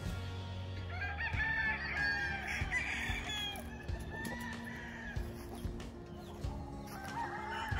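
Several roosters crowing, their calls overlapping from about a second in, with another crow starting near the end, over background music.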